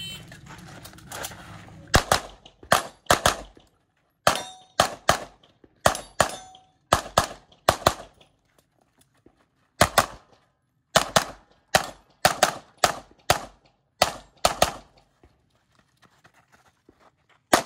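Pistol shots fired in quick pairs and short strings during a USPSA stage run, starting about two seconds in. The strings are broken by short pauses while the shooter moves between positions.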